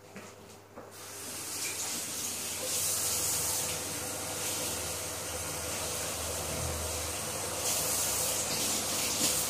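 Kitchen tap running steadily, filling a vessel with tap water; the rushing starts about a second in and holds.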